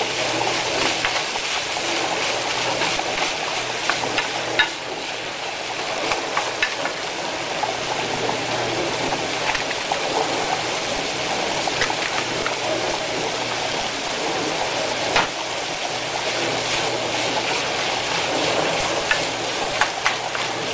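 Vegetables and bacon sizzling in a skillet, a steady crackle with a sharp click now and then.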